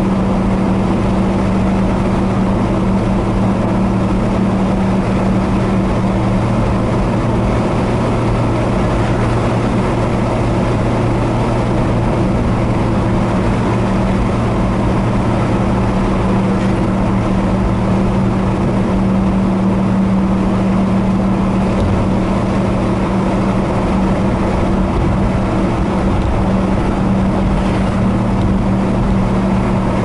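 A vehicle driving at a steady speed: a constant engine drone with a low, even hum over road noise.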